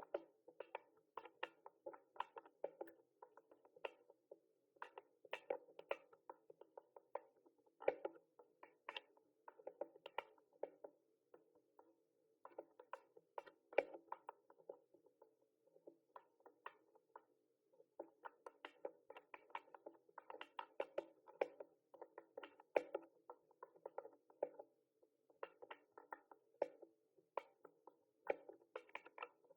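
Typing on a mechanical keyboard: quick, irregular key clicks in runs, broken by short pauses.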